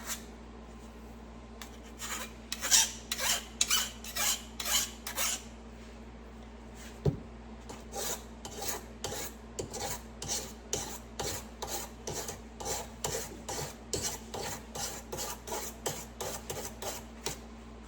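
A file rasping in repeated strokes along the steel rails of a Husqvarna 445 chainsaw guide bar, taking off the burr (lip) on the rail edges. A first run of strokes, a pause with a single click, then a longer run of quicker strokes at about two or three a second.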